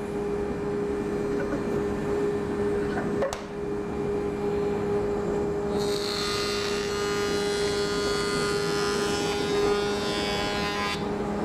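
Felder CF741 combination machine's jointer running with a steady hum. About six seconds in, a thin rough-sawn board is pushed over the spinning cutterhead, giving a higher cutting noise for about five seconds that stops shortly before the end. There is a single knock about three seconds in.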